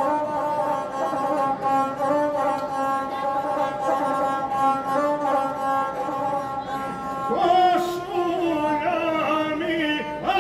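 Gusle, the single-string bowed folk fiddle, playing held notes that step up and down. About seven seconds in, men's voices come in singing over it.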